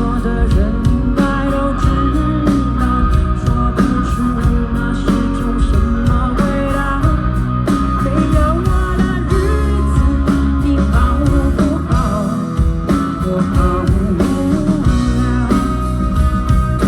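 Live rock band playing, with guitar to the fore over drums and bass.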